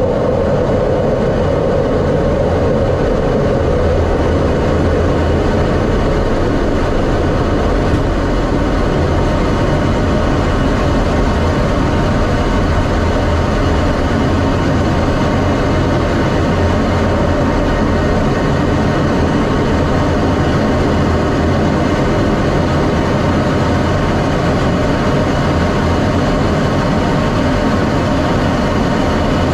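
F-16D fighter jet's engine running steadily: a constant, unbroken rumble with a hiss above it that stays level throughout.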